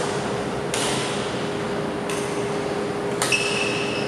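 Badminton rally: a shuttlecock struck by rackets three times, about a second and a quarter apart, each a sharp crack. Near the end a court shoe gives a sustained high squeak as it slides on the wooden floor in a lunge. A faint steady hum runs underneath.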